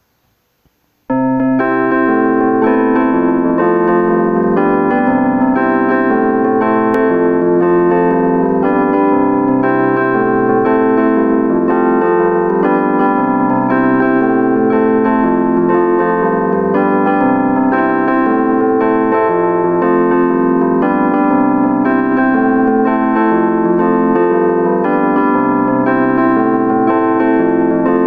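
Piano music, a steady, evenly paced run of notes and chords, starting suddenly about a second in.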